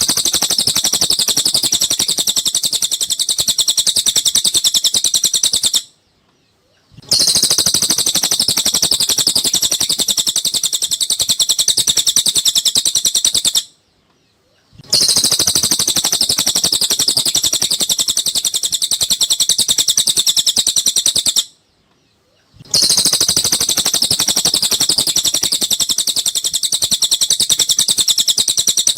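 Cililin bird song: long bouts of fast, high trilling chatter, each about six seconds, broken by pauses of about a second.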